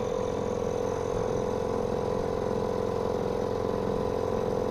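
Sailing yacht's inboard diesel engine running steadily as the boat motors slowly, a constant hum.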